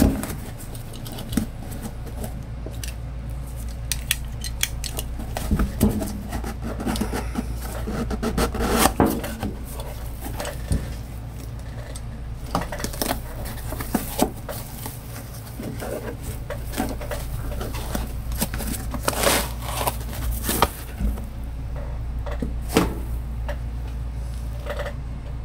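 Scattered clicks, taps and rustling from hands handling a new bathroom exhaust fan motor and its cardboard box and packaging during unboxing, over a steady low hum.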